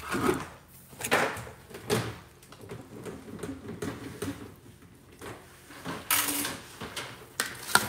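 Scattered knocks, scrapes and rustles of toys and household objects being handled and put away, with a longer sliding rustle about six seconds in.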